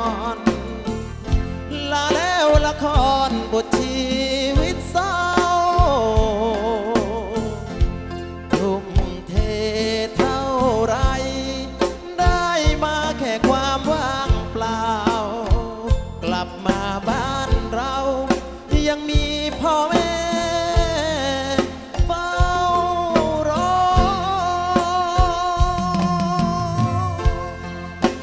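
Live Thai band music without words: a drum beat strikes steadily under a lead melody that slides and wavers with vibrato.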